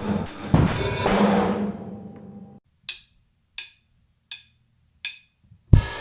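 Drum kit played: heavy drum and cymbal hits ring out and fade over the first two and a half seconds. Then four sharp, evenly spaced clicks follow, and the kit comes back in with loud strokes near the end.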